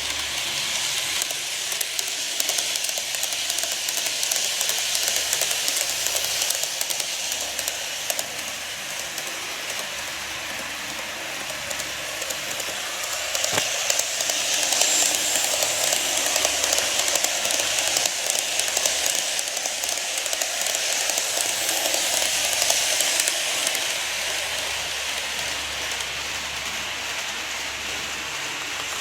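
Model railway trains running on the layout track: a steady hiss of wheels and motors that swells louder twice, with a single sharp click about halfway through.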